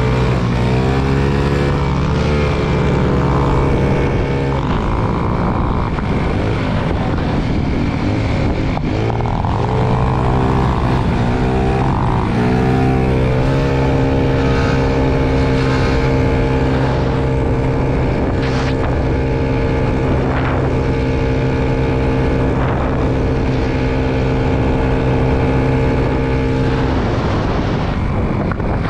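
Small motorbike engine under way, rising and falling in pitch several times as the throttle changes, then holding a steady note while cruising for most of the rest, with wind rushing over the microphone.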